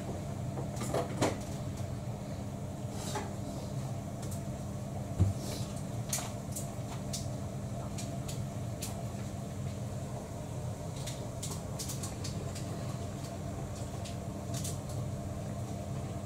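Cats eating from food bowls: scattered small crunches and clicks with an occasional clink of a bowl, over a steady low hum. A single louder knock about five seconds in.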